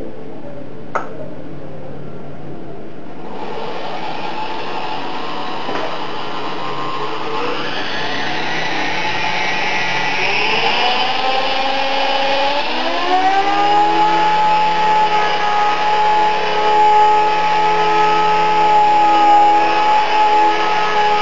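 Electric RC helicopter (Esky 005 CP2 with King shaft-drive tail, 3100kv brushless motor) spooling up: the motor and rotor whine rises in pitch over several seconds, then holds steady at flying speed as the helicopter lifts into a hover. A single click about a second in.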